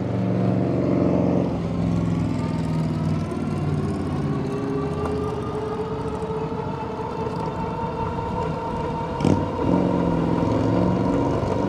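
Electric hub motor of a MeeBike Gallop e-bike under full throttle from a standstill, its whine rising slowly in pitch as the bike gains speed, then levelling off near top speed. Riding wind and road noise run throughout, with one short knock about nine seconds in.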